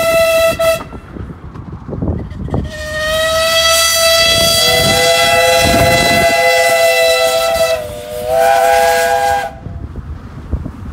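Steam whistles of a double-headed train of two 15-inch-gauge steam locomotives. A single whistle cuts off under a second in. After a gap of about two seconds one whistle opens and is joined by a second, lower one, and the two-note chord is held for several seconds, sagging briefly in pitch near the end before stopping.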